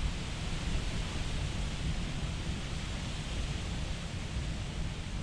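Wind buffeting the microphone: a steady, fluctuating low rumble with a hiss over it.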